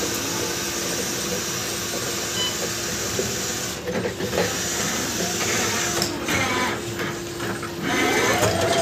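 Electric reach truck driving past on a concrete floor: a steady motor whine over a hissing drive noise, with squealing tones growing louder near the end.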